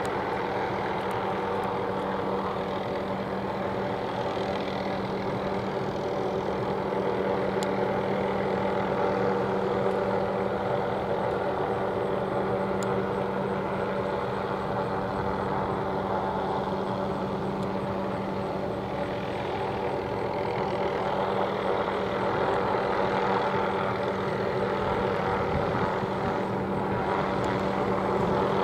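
Hughes 500E (MD 369E) helicopter in a low hover, its Allison 250 turboshaft engine and rotors running steadily, with slight swells in loudness.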